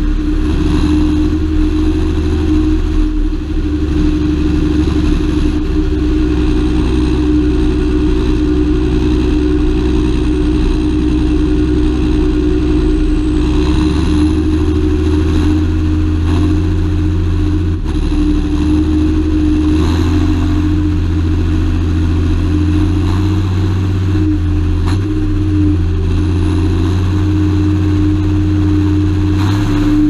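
John Deere 7530 Premium tractor's six-cylinder diesel engine running steadily under load, with a faint high whistle above it that wavers up and down in pitch.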